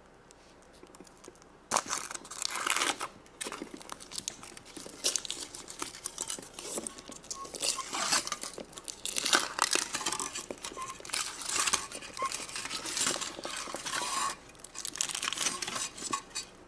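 Foil wrapper of a large Kinder Surprise chocolate egg being crinkled and torn open by hand: irregular crackling and tearing that starts about two seconds in and goes on almost to the end.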